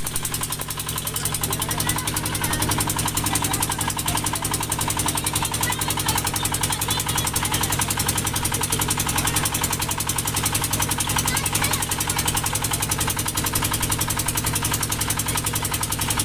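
Motorboat engine running steadily with a fast, even beat while the wooden boat moves under power.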